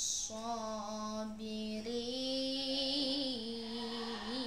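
A boy's voice reciting the Quran in melodic, drawn-out chant. After a brief 's' sound at the start, he holds long notes that step up and down, with a quavering ornament near the end.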